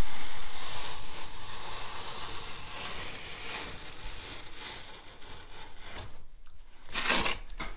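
Rubbing and scraping as a taped duct board panel is worked into place by hand, with a short louder scrape about seven seconds in.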